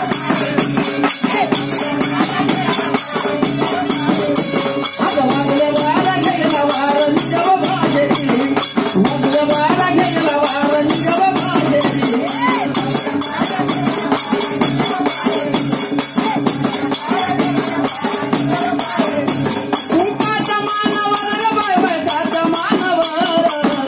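Live Marathi devotional folk song: a singer's voice with rattling, jingling hand percussion keeping a fast, steady beat throughout.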